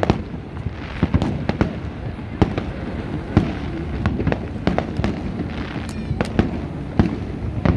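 Fireworks going off in an irregular string of sharp bangs, a dozen or more, over a steady low rumble.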